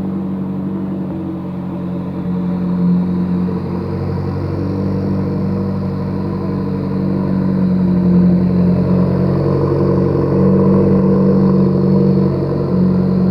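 McLaren 650S Spyder's twin-turbo V8 idling high just after a cold start: a steady drone that grows slightly louder, with a faint high whistle above it from the turbos.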